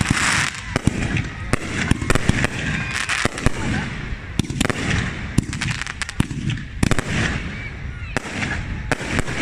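Fireworks display: a rapid, irregular series of sharp bangs from exploding aerial shells over continuous crackling.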